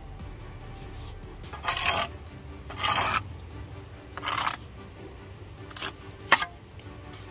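Steel brick trowel scraping three times along the bed joint of a freshly laid brick, cutting off squeezed-out mortar, followed by two short sharp taps about half a second apart. Faint background music underneath.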